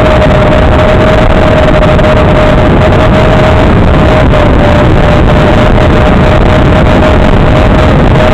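FPV quadcopter in steady cruising flight, heard through its own analog video-link audio: a loud, constant rushing noise with a single steady motor whine running through it.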